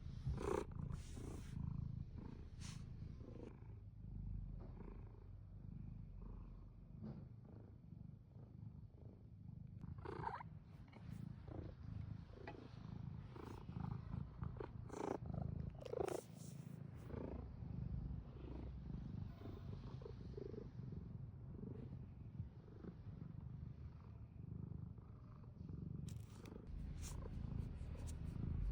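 Domestic cat purring steadily, close up, with a few brief rustles or clicks along the way.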